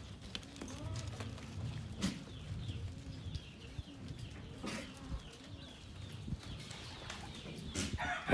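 Quiet farmyard bird calls, short cooing and clucking notes, over a low rumble, with a few sharp knocks about two, five and eight seconds in.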